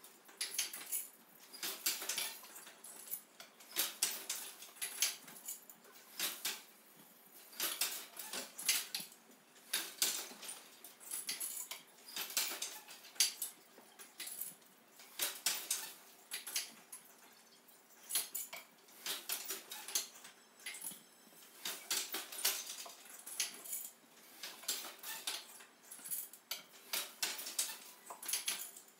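Wooden hand loom clacking as it is woven: the shuttle is passed through the warp and the wooden beater is knocked against the cloth, in repeating clusters of knocks about every two seconds.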